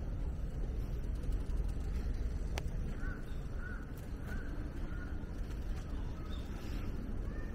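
A crow cawing: a run of about four short caws roughly two-thirds of a second apart in the middle, with a few fainter calls later, over a steady low rumble. A single sharp click comes shortly before the caws.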